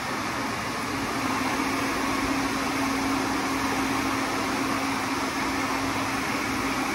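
Wall-mounted hair dryer blowing steadily, a rushing air sound with a steady motor hum that grows a little louder about a second in.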